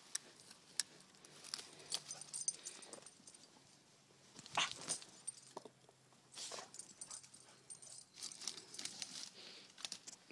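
Scattered crackling, rustling and snapping of leaves, twigs and brush as a person and a puppy move through woodland undergrowth, with a few louder rustles about halfway through.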